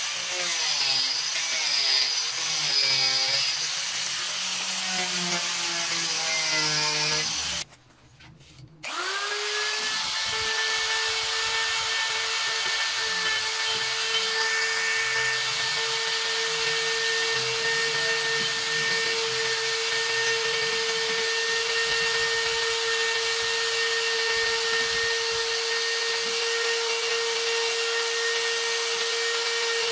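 An angle grinder with a sanding disc working wood, its pitch wavering under load. After a short break about 8 seconds in, a rotary tool spins up with a rising whine and runs at a steady pitch while its burr bit carves the wood.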